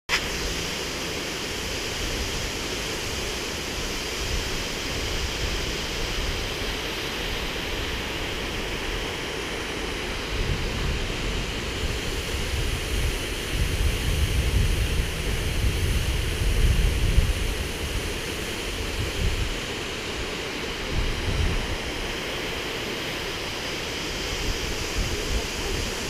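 Steady rushing hiss of a waterfall. Wind buffets the microphone with low rumbles now and then, most in the middle.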